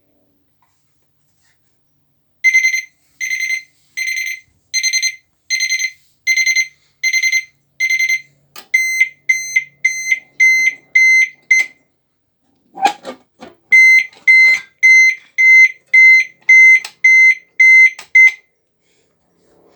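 Alarm panel buzzer beeping a high-pitched pulsed tone, at first about one and a third beeps a second, then quicker and shorter at about two a second, with sharp clicks among the beeps. The beeping breaks off briefly for a clunk, then resumes at the quicker rate and stops.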